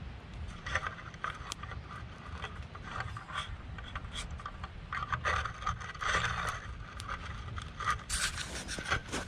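Wood scraping and rubbing in irregular short strokes, with a few sharp clicks, busier in the second half.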